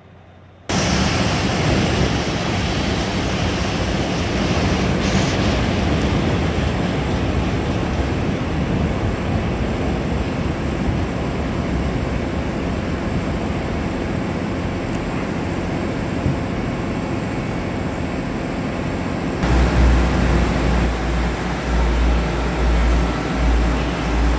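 Steady rushing railway-station noise while a Korail RDC Mugunghwa diesel railcar approaches. About nineteen seconds in, the sound changes to a deep, pulsing rumble from the RDC's diesel engine idling as it stands at the platform.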